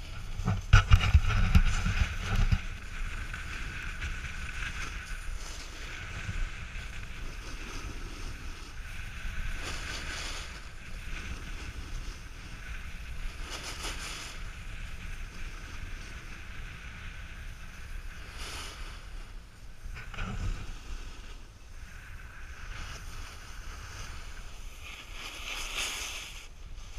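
Snowboard sliding over packed snow with wind buffeting the action camera's microphone: a steady rushing hiss, a heavy gust of wind rumble in the first couple of seconds, and several short louder scrapes of the board's edges on the turns.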